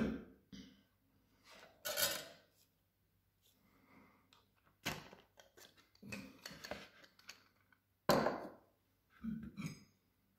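Plastic and stainless-steel parts of a hand blender being handled and fitted together: separate knocks, clicks and rubs a second or two apart, the loudest about two seconds in and about eight seconds in. The motor is not running.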